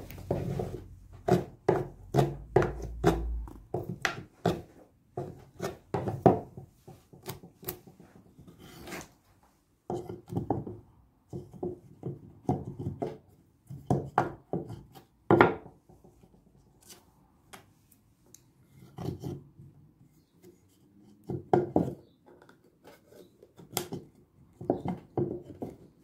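Wood on wood: irregular taps, knocks and short scraping rubs as a wooden bowtie key is handled and worked against a wooden slab tabletop, in quick runs with pauses between, one sharper knock about halfway through.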